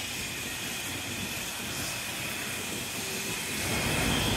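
City traffic on a rain-wet road: a steady hiss of tyres on wet asphalt, growing louder near the end as a car comes closer.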